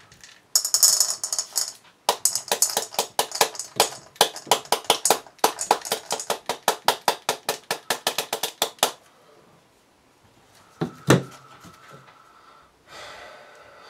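Contents of a cut-open aerial firework shell, its stars, poured out into a bowl on a kitchen scale: a short rushing pour, then a fast run of small hard pellets clicking and rattling into the bowl for about seven seconds. A single knock follows near the end.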